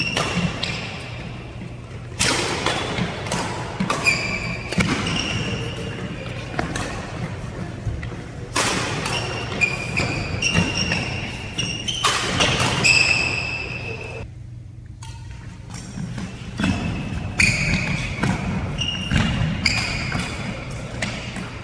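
Badminton doubles play: sharp racket strikes on the shuttlecock mixed with many short squeaks of court shoes on the gym floor, with a brief lull about two-thirds through.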